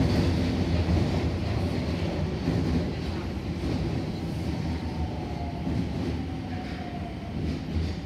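Nagoya Higashiyama Line N1000 series subway train running, its rumble gradually easing, with a faint falling whine about five to seven seconds in.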